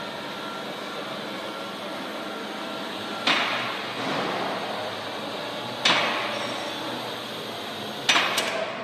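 TEUN Picker One container-unloading robot at work: a steady machine hum with three sharp knocks that ring on briefly in the hall, the last one doubled near the end, as cardboard cartons are gripped and set down on its roller conveyor.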